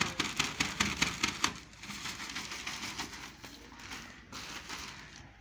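Plastic sack of earthing compound crinkling as its powder is poured into an earth-pit bore, with a dense run of crackles over the first second and a half, then a softer rustle.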